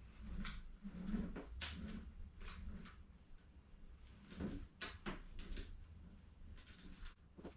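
Irregular plastic clicks and rattles of a Rubik's cube being turned by hand, in short uneven runs.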